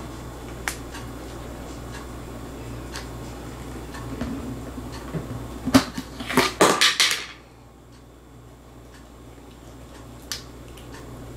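A cat prying the plastic lid off a plastic food container with its paw: a short run of sharp plastic clicks and clatters about six seconds in as the lid comes loose and falls to the floor. A single light tick comes near the start and again near the end.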